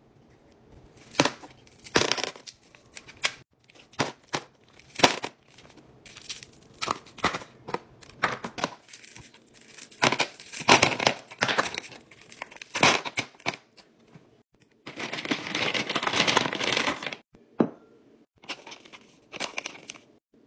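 Frozen ice balls cracking and clattering as they are popped out of a plastic ice-ball mould tray and dropped into a plastic tub: a string of sharp, irregular cracks and knocks, then about two seconds of continuous rattling and crackling.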